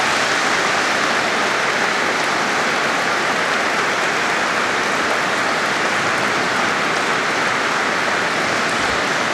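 Large audience applauding: a steady, dense sound of many hands clapping at once.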